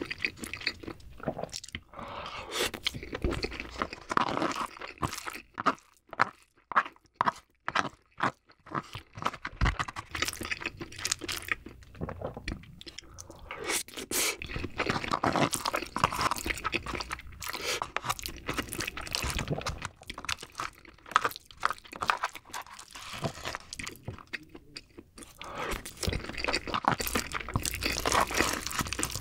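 Close-miked wet chewing and mouth sounds of eating king crab meat mixed with rice, with a wooden spoon scraping and scooping inside the crab's shell, a steady run of small irregular clicks and crunches.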